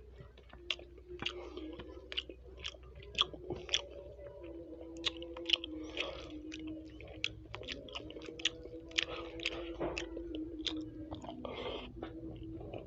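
Close-miked chewing of grilled chicken: wet mouth smacks and sharp clicks, several a second, with a faint steady tone underneath.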